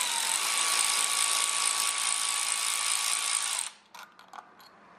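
A power ratchet spinning out an engine cover bolt, running steadily with a motor whine for about three and a half seconds before it stops suddenly. A few light clicks follow as the socket comes off the bolt.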